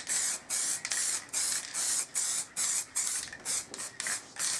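Aerosol can of Holts Simoniz acrylic matt black spray paint hissing in quick short bursts, about two a second, as the paint is flicked over a panel in light passes.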